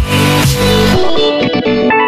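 Background music with a steady beat and heavy bass; about halfway through, the bass drops out, leaving only higher notes.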